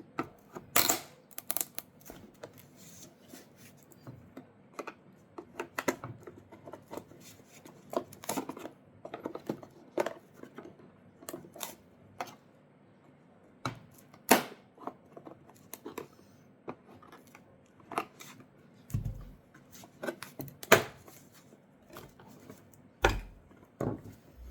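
Irregular clicks, taps and scrapes of hand tools working on the plastic parts of an old taillight as the lens and its tabs are pried out of the housing, with a few sharper knocks about a second in and again near the middle and the end.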